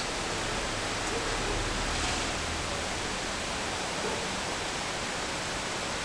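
Steady, even hiss of background noise.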